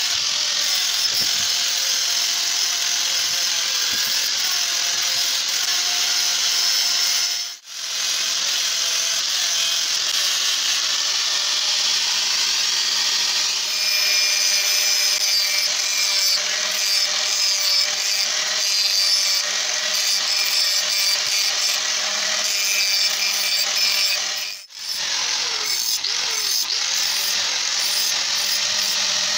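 Angle grinder running with its abrasive disc against the steel blade of a rusty masonry trowel, grinding off the rust: a steady motor whine under a harsh grinding noise that grows harsher about halfway through. The sound breaks off for a moment twice.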